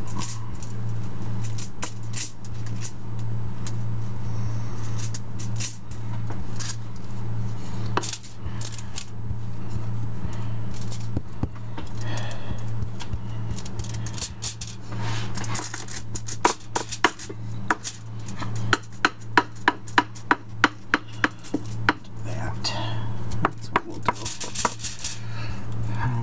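Wooden spoon pressing and patting the edges of a raw ground-meat loaf into a rectangle on aluminum foil, with scrapes and foil crinkles. Past the middle comes a run of quick sharp taps, about three a second, over a steady low hum.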